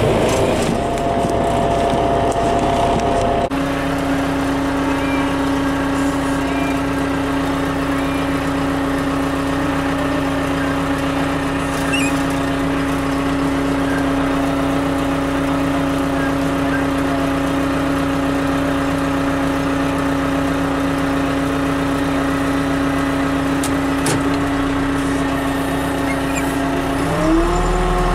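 Engine of heavy snow-clearing equipment running steadily. Its note changes a few seconds in, and it rises in pitch near the end as it revs up.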